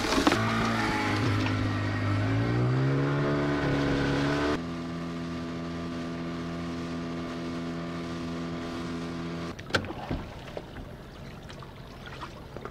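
Small outboard motor on an inflatable dinghy, its pitch rising as it speeds up, then running steadily at a higher speed. It cuts out about ten seconds in, leaving faint noise with a few knocks.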